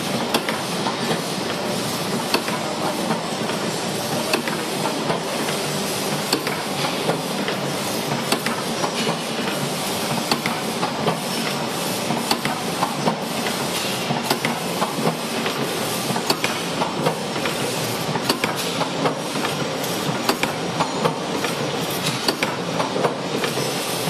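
Automatic wire-forming machines running together, a steady mechanical clatter with many sharp, irregular metallic clicks as they feed, bend and coil steel wire.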